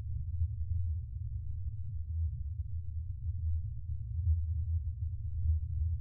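Spaceship interior ambience sound effect: a steady, deep hum with slow, uneven swells in loudness, and nothing heard above the drone.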